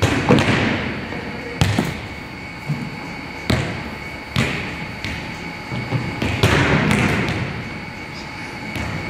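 Volleyballs being struck and bouncing on a hardwood gym floor: about six sharp smacks a second or two apart, each ringing on in the echo of the big gym.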